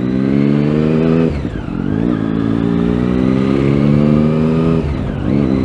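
Triumph Daytona 675's three-cylinder engine accelerating, its note rising steadily. It dips briefly about a second and a half in, rises again, and dips once more near the end.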